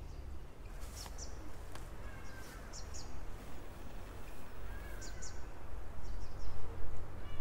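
Small birds chirping in short high calls every second or two, with a few faint whistled notes, over a steady low rumble.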